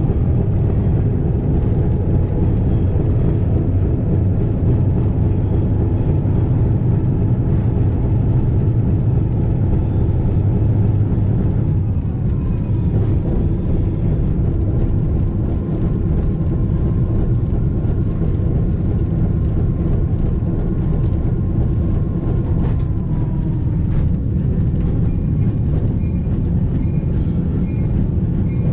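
Diesel locomotive under way on the rails: a loud, steady low engine rumble mixed with wheel-on-rail noise, heard from outside the cab. About halfway through, a faint high whine holds for about ten seconds, then falls away.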